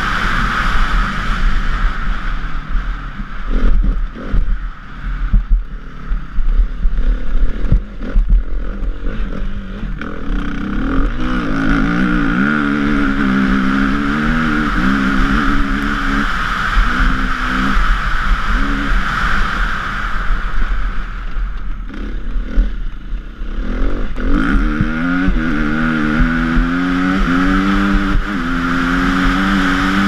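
KTM EXC 350 four-stroke single-cylinder dirt bike engine at race throttle, heard from on board. In the first third there are many knocks and clattering from the rough gravel. Around halfway and again near the end the engine pulls hard, its pitch climbing and stepping down at each gear change.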